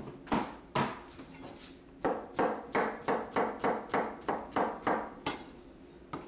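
Knife chopping a peeled banana into slices on a plastic cutting board. There are two knocks near the start, then a steady run of about a dozen chops at roughly three a second.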